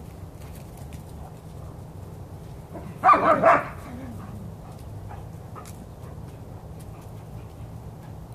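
A dog gives a short run of quick barks about three seconds in, play barks during a chase with another dog.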